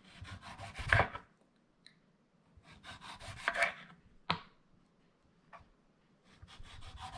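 Kitchen knife slicing a cucumber into rounds on a wooden cutting board: short runs of quick cutting strokes, with the blade knocking on the board, one sharp knock standing out about four seconds in.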